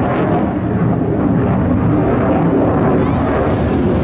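Distant RAF Eurofighter Typhoon FGR4 with its twin EJ200 turbofans in afterburner during a vertical climb: a steady, low jet noise without clear pitch, dulled by distance.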